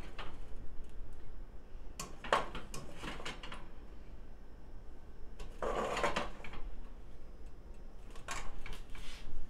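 A serving utensil scraping and clinking against a skillet and a ceramic bowl as cooked pasta is scooped into the bowl. The sound comes in a few short bursts of clatter, the longest a scrape of about a second around the middle.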